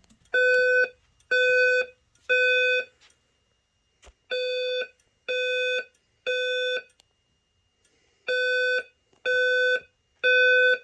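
Simplex 4903 speaker/strobe fire alarm speakers sounding a steady tone in the temporal-3 evacuation pattern: three half-second beeps and a pause, repeated three times.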